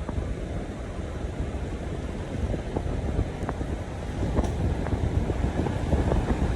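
Wind buffeting the microphone: a low rumble with short crackles, growing louder about halfway through.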